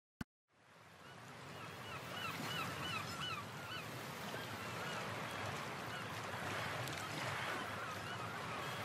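Nature ambience fading in over the first couple of seconds: a bird calling in quick runs of repeated chirps over a steady rushing noise. A single click comes just before it starts.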